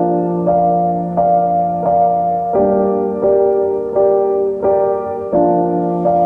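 Slow piano music: evenly spaced notes or chords, one about every two-thirds of a second, each ringing on as it fades.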